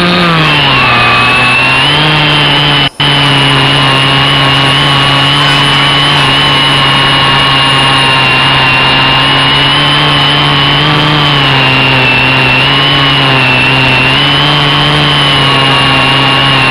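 Quadcopter motors and propellers running steadily in flight, a hum with a high whine above it whose pitch drifts slightly up and down as the throttle changes. The sound cuts out for an instant about three seconds in.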